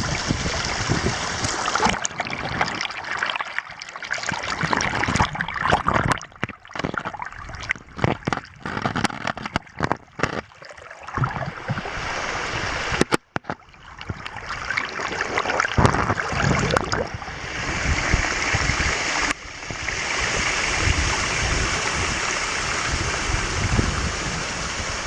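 Water of a tall monsoon waterfall rushing, with gusts of wind on the microphone. The sound drops and returns several times from about six to eleven seconds in, and changes abruptly twice later on.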